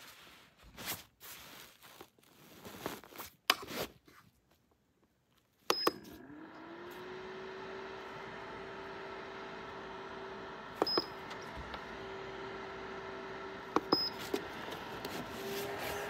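Knocks and rustles of handling, then about six seconds in a short beep and the Rolitwils portable clothes dryer's fan motor starts, rising in pitch as it spins up and settling into a steady hum. Its touch controls beep twice more later on as settings are pressed.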